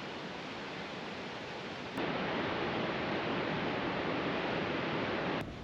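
Steady rushing of Augrabies Falls, water pouring through the gorge. It gets louder about two seconds in and cuts off abruptly near the end.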